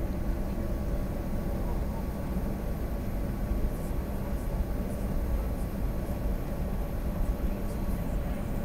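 Steady low cabin rumble of an airliner taxiing, its jet engines at idle and the wheels rolling over the taxiway, heard from inside the cabin, with a faint steady hum over it.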